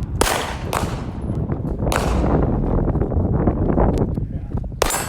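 Pistols fired irregularly by several shooters on a firing line. About four loud, sharp shots, each with a short echo, are spread across the few seconds, with fainter shots between them.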